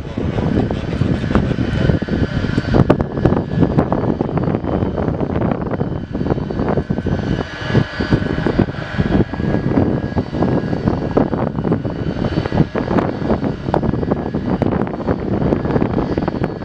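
Boeing 747 jet engines running at high power: a loud, rough, crackling engine noise with a faint steady whine over it.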